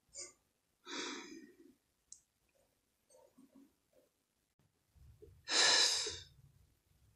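A person breathing out audibly: a short breath about a second in, then a louder, longer sigh about five and a half seconds in.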